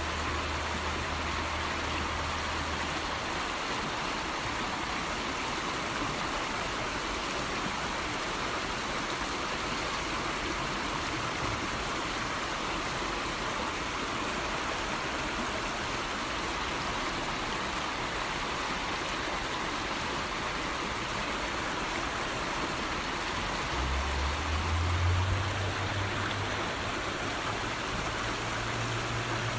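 Steady rushing of flowing water. A low hum comes in about three-quarters of the way through, the loudest thing in the stretch, and lasts to near the end.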